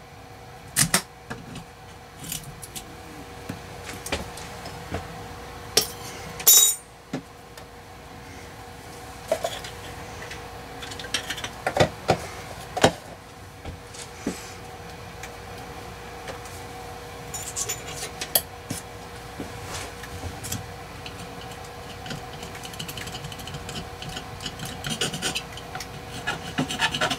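Hands handling adhesive label strips at a breaker switch panel: backing peeled and labels pressed and rubbed into place, with scattered clicks, taps and short scrapes over a steady hum.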